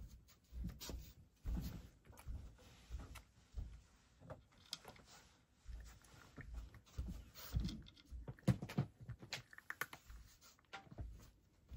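A cat eating small pieces of dry food from a wooden tray: irregular chewing and crunching clicks, with soft knocks now and then.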